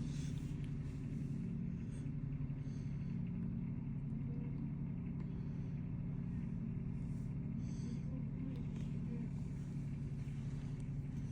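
Mini skid steer's engine running steadily under way.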